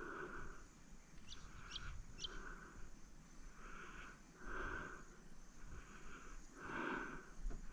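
Faint outdoor ambience with three quick rising bird chirps between about one and two and a half seconds in, over soft noise that swells and fades every second or so.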